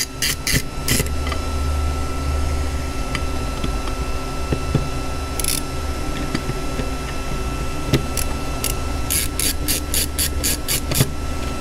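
Small screwdriver working the screws on a circuit-board module, giving sharp clicks: a few in the first second, one in the middle, and a quick run of about four a second near the end. A steady low hum runs underneath.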